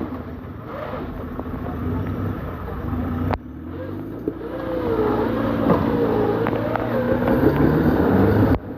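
Off-road 4x4 engine running and revving under load, with a sudden cut about a third of the way in, after which the engine grows louder.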